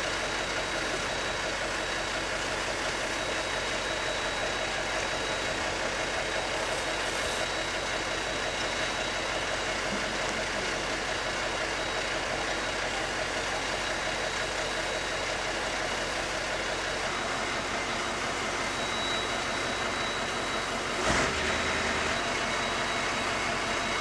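Fire engine's engine and pump running steadily, with the hiss of a hose stream spraying water. A brief knock about 21 seconds in.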